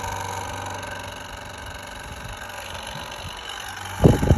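A 1950s electric hair dryer running on its cold setting: a steady motor hum with a fan whir. Near the end come a few loud rustling bursts.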